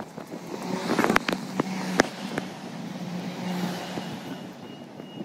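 Road traffic: a car running past on the street, with several sharp clicks in the first half.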